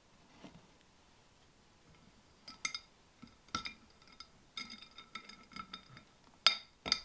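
Glass swing-top jar being closed: the glass lid and wire clasp clink against the jar in a run of small ringing taps, ending in two louder clinks about half a second apart as the lid is pressed down and clamped shut.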